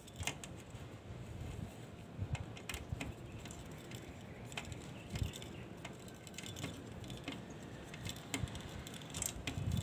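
Faint, irregular metallic clicks and small taps as a folding Swiss-knife multi-tool is worked against the steamer's handle bracket.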